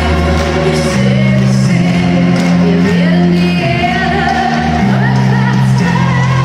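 Live pop band music in a large arena: sustained bass notes changing about once a second under held, wavering melody lines.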